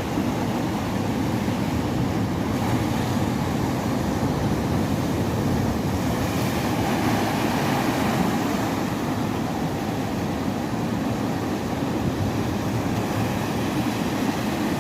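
Steady, even rushing noise of a boat at sea, with engine, wind and waves blending into one unbroken sound.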